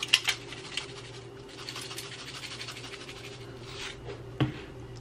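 Red pepper flakes shaken from a spice shaker jar over food: a few short scratchy shakes near the start and more soft rustling later. A single sharp knock comes about four and a half seconds in, over a faint steady hum.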